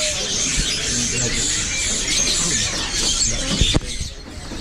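Many caged songbirds chirping and twittering at once in a crowded bird market, with faint voices underneath. Two sharp knocks come near the end, after which the din briefly drops.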